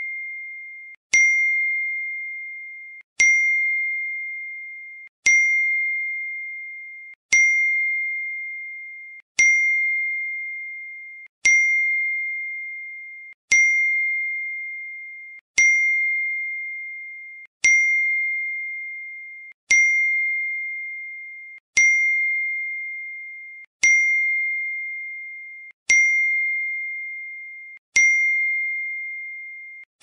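Apple iPhone message notification tone, a single high bell-like ding, played over and over about every two seconds. Each ding starts sharply and fades away before the next one begins.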